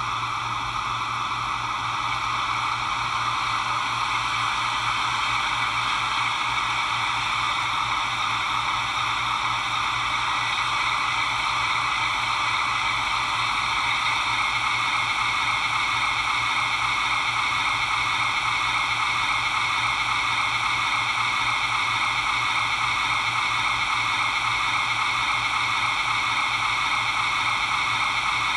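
MTH Protosound 3.0 AEM-7 O gauge model locomotive's onboard sound system playing the electric locomotive's running sound at Run 8: a steady hiss with a low hum under it, growing slightly louder over the first few seconds.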